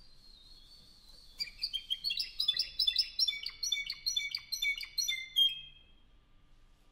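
Spanish timbrado canary singing: a faint thin high note, then from about a second and a half in a fast run of short clipped notes jumping between pitches, ending near the end of the song in a brief held lower note.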